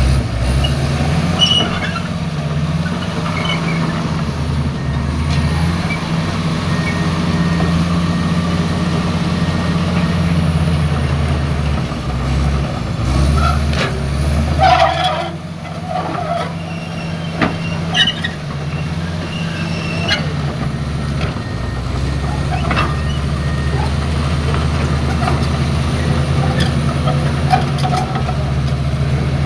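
Excavator's diesel engine running under load, its note shifting as the machine works and dipping briefly about halfway through, with scattered clanks.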